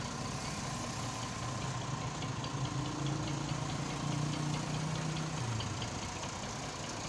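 Tractor engine running at low revs as it moves a trailer chassis; the engine note rises a little in the middle and drops back about five and a half seconds in.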